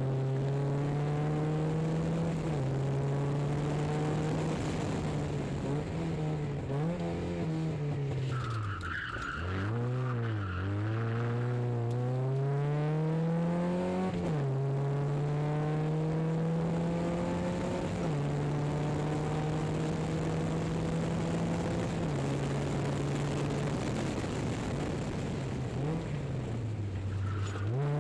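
Volkswagen Scirocco Mk1's four-cylinder petrol engine heard from inside the cabin under hard acceleration, its pitch climbing steadily through each gear and dropping at every upshift. About a third of the way in the revs fall and rise sharply a few times as the car slows for a corner, with a brief tyre squeal.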